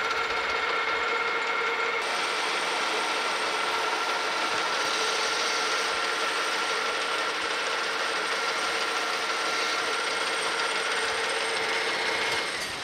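Metal lathe turning a steel shaft on a roughing cut: a steady whine from the headstock gearing over the hiss of the tool cutting, with the cutting noise getting brighter about two seconds in. Near the end the sound drops away as the lathe is stopped and spins down.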